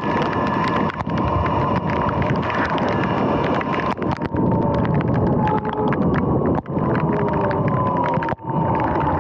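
Sur-Ron X electric dirt bike riding on a wet road in heavy rain: a steady electric motor whine that drifts slightly in pitch, under the hiss of wind, rain and tyre spray. The sound dips briefly three times.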